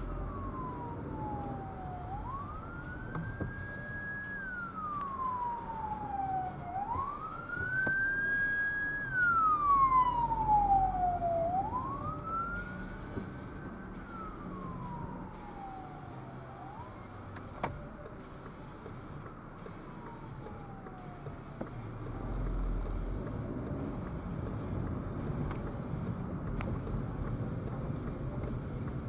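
Emergency vehicle siren wailing, its pitch rising quickly, holding, then sliding slowly down in cycles of about four to five seconds. It is loudest about ten seconds in and fades out about two-thirds of the way through. Car engine and road noise run steadily underneath, heard from inside a car.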